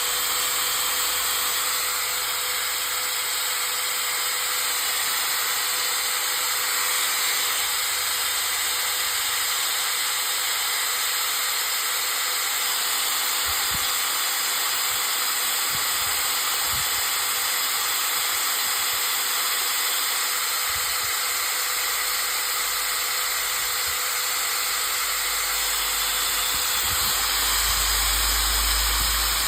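INCO 750 W 13 mm electric drill running free at a steady speed: an even motor whine with a rushing hiss. It settles at full speed right at the start.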